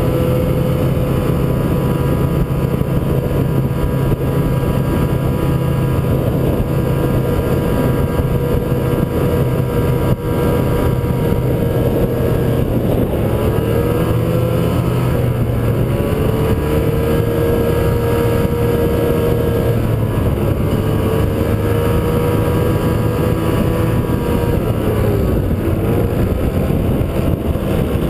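Snowmobile engine running under way, heard from on board the moving machine. Its note is steady, dipping briefly and picking up again a few times as the throttle is eased and reopened, around a third, two thirds and nine tenths of the way through.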